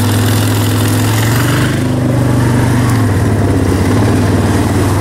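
Three-wheeler ATV's small single-cylinder engine running steadily at low speed, its pitch dipping slightly about three seconds in.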